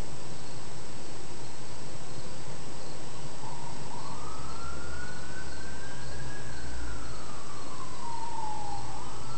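Steady hiss with a thin high whine throughout. From about three and a half seconds in, a siren wails: its tone rises, holds, falls, then rises again near the end, over a low rumble in the middle.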